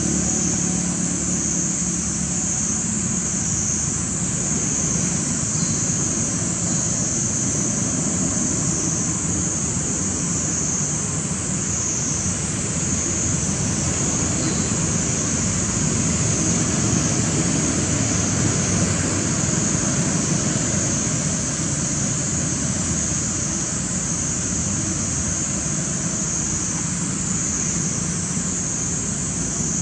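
Steady outdoor ambience: a continuous high-pitched insect drone that wavers slightly, over a low, even rumble.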